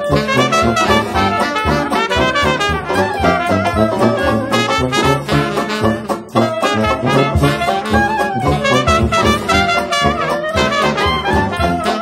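New Orleans-style 1920s jazz band playing an up-tempo number, brass instruments leading over a steady beat.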